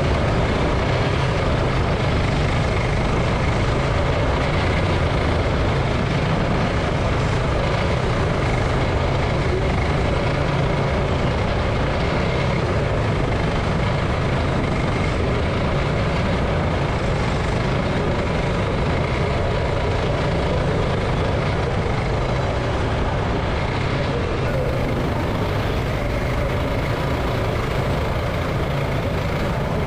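Go-kart engine running steadily under racing load, heard from on board the kart.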